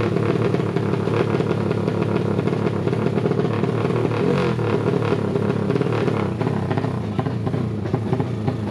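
Drag-race motorcycle engine running loudly at the start line, with a rapid, even rattling beat.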